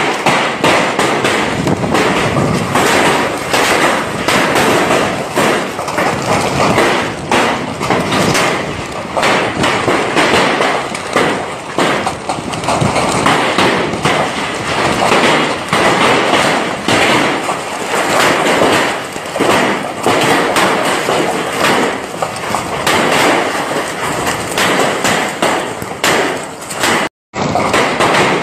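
Heavy wind-driven rainstorm: a loud, continuous rush of rain and gusting wind, dense with crackling thuds. The sound cuts out for an instant near the end.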